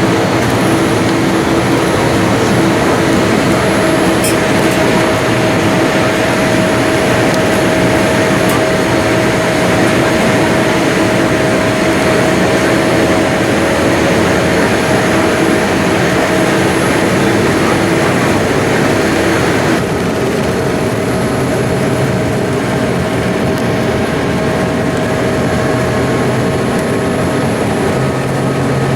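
Boeing 787-8 Dreamliner jet engines running steadily, heard inside the cabin as a loud, even rush of engine and air noise with a faint steady hum. The noise drops slightly about two-thirds of the way in.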